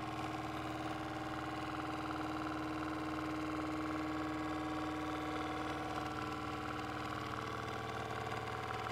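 Small electric motor spinning the LED rotor of a persistence-of-vision display, a steady whirring hum with several held tones.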